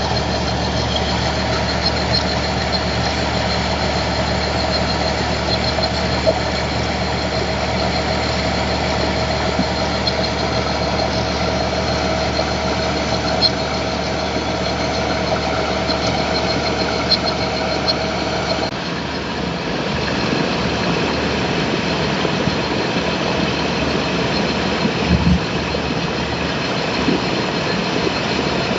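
A train standing at the platform with its engine idling, a steady hum. About two-thirds through, the low hum drops away and the sound turns rougher, with a few light knocks.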